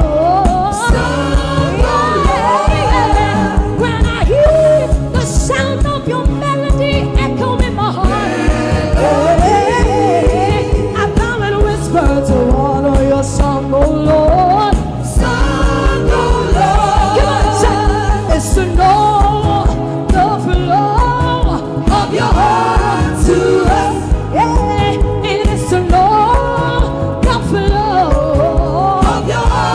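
Gospel praise song: a band with a steady beat, with a singer's gliding, wordless vocal lines over it.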